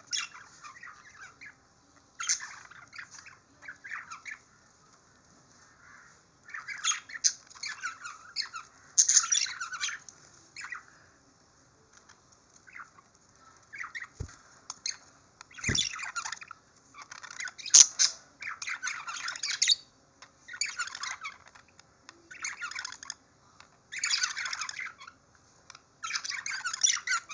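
Small pet birds chirping and squawking in repeated bursts with short pauses, with a few sharp clicks about halfway through.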